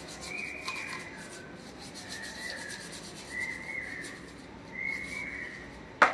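A brush scrubbing a Honda Livo carburetor part in a basin of petrol: scraping strokes a second or so apart, with a sharp knock near the end.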